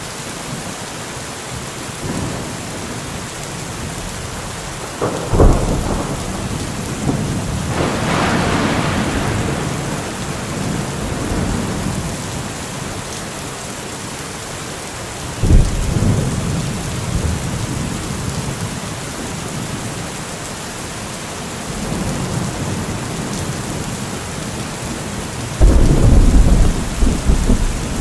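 Heavy rain falling steadily through a thunderstorm, with thunder: sharp claps about five seconds in and just past the middle, a longer rolling rumble around eight seconds in, and a loud clap near the end that rumbles on for about two seconds.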